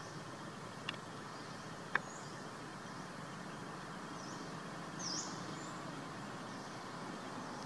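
Outdoor ambience: a steady background noise with scattered short, high bird chirps, the clearest about five seconds in. Two sharp clicks sound about one and two seconds in.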